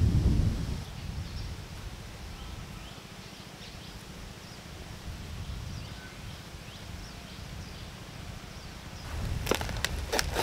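Outdoor ambience: a low steady rumble with faint, scattered bird chirps. Near the end come a few light clinks and knocks of tableware being handled.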